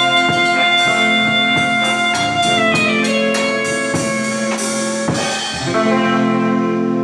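A small live band of saxophone, electric guitars and drum kit playing: the saxophone holds long notes while the drums strike a run of evenly spaced hits, about two to three a second, then the band settles onto a held chord near the end.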